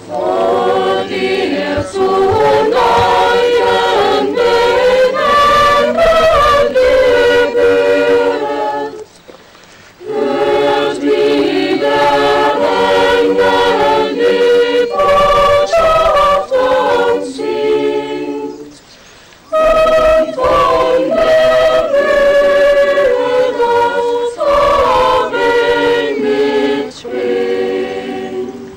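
Mixed choir of men's and women's voices singing a cappella, in three phrases with short pauses about nine and eighteen seconds in.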